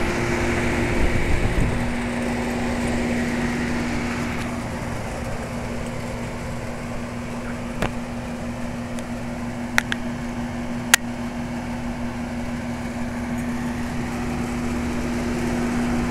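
A circa-1975 York Champion IV 'Tombstone' central air-conditioner's condensing unit running and working normally: a steady compressor hum under the whoosh of the condenser fan. A few sharp clicks come about halfway through.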